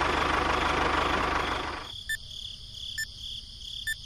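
An engine sound effect for a toy tractor runs steadily for about two seconds, then cuts out. A countdown timer takes over, ticking about once a second over a steady high tone.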